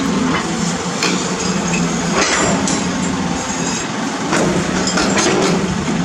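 Caterpillar 320D hydraulic excavator's diesel engine running steadily under load, with several knocks and scrapes as its steel bucket digs through broken concrete slab and soil in the trench.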